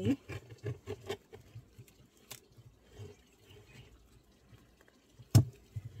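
Gloved hands handling a wooden beehive box: scattered clicks and light knocks, then one sharp, loud knock near the end.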